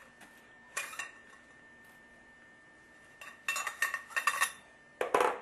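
Copper pipe fittings clinking and scraping metal on metal as they are handled and fitted onto a copper pipe, in short bursts: once about a second in, a rapid cluster from about three and a half to four and a half seconds, and once more near the end.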